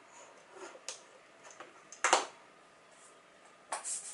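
A few sharp clicks and knocks of a USB-C cable plug and small gadgets being handled on a desk, the loudest about two seconds in.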